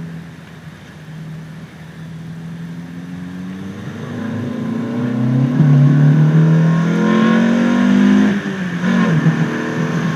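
Renault Clio RS 172's 2.0-litre four-cylinder engine breathing through an open Ramair pod air filter. It runs steadily, then from about four seconds in it accelerates, its intake and engine sound rising in pitch and growing louder. Just past eight seconds it drops sharply as the throttle is lifted, then settles back to a steady tone.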